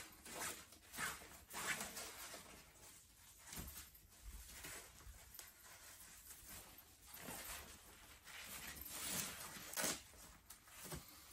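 Faint rustling and scraping of a pop-up play tent's nylon fabric as a pole is slid into a sleeve across its front, in short irregular scrapes. A louder rasp comes near the end.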